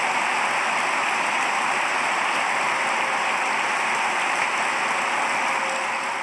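Large audience applauding: steady, dense clapping that eases slightly near the end.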